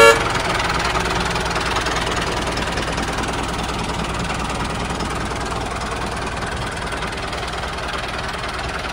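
Tractor engine running steadily, with a brief horn toot right at the start.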